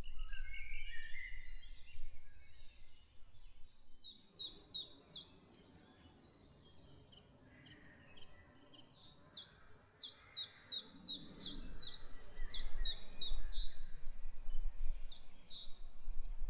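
Woodland songbirds singing: a few falling whistled phrases first, then bouts of quick, high repeated notes, about four a second. A low rumble comes in during the second half.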